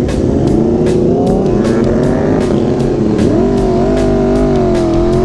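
Aprilia Tuono V4 Factory's engine running under way through a Leo Vince aftermarket exhaust, its revs climbing gradually and then changing sharply about three seconds in.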